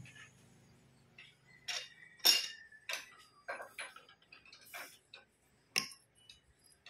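Metal lathe's low hum dying away in the first second, then a run of irregular sharp metal clicks and knocks, the loudest about two seconds in, as a propeller-shaft universal-joint yoke is tapped and adjusted in the four-jaw chuck to centre it.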